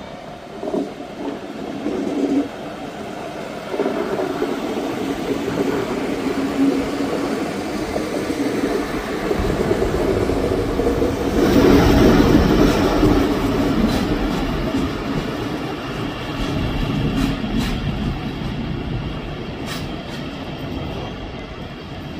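DB class 628 diesel multiple unit running past, its underfloor diesel engine giving a steady drone. The rumble swells to its loudest about halfway through as the train goes by, then eases as it moves away, with a few sharp clicks from the wheels on the track.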